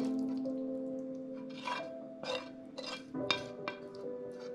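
A kitchen utensil scraping a handful of times against a frying pan as pasta and sauce are pushed out onto a plate, over soft background music with held notes.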